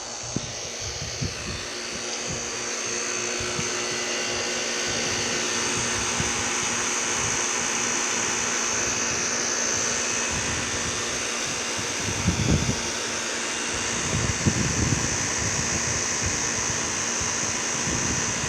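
Carrier 38CKB central air conditioner condensing unit running in cool mode: a steady rush of the condenser fan over a steady hum from the compressor, which the owner thinks is a Millennium scroll.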